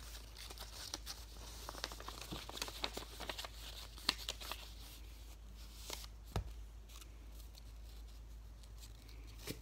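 Sheet of white paper rustling and crinkling as it is handled and rolled into a tube, with many small crackles, busiest in the first half, and a soft thump about six seconds in.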